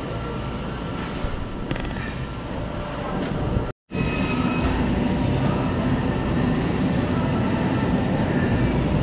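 Steady supermarket background noise, a mix of rumble and hum. It drops out completely for a moment a little before four seconds in, then comes back slightly louder with a low steady hum.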